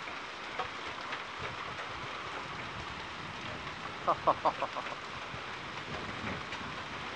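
Hard rain with gumball-sized hail: a steady hiss with scattered sharp ticks of hailstones striking. About four seconds in, a quick run of about six short high-pitched chirps stands out above it.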